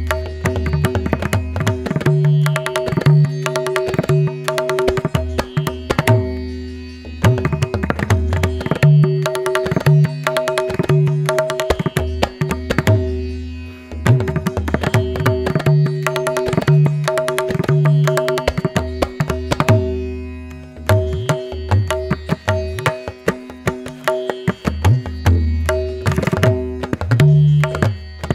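Background instrumental music in an Indian classical style: hand percussion playing a rhythm over steady sustained drone notes. The phrase repeats about every seven seconds, with a short break between repeats.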